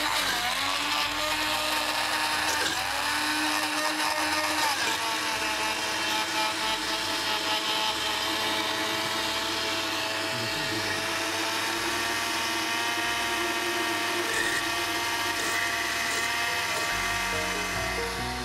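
Countertop blender motor running steadily with a high whine as it blends thick mayonnaise. Its pitch dips and picks up again a couple of times in the first few seconds.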